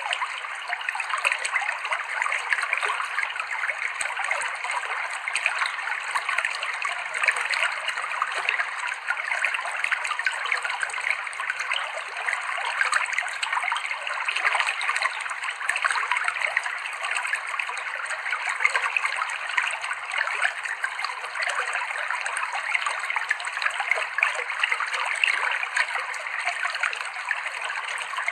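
Clear river water flowing and splashing over rocks: a steady babbling rush of a shallow stream.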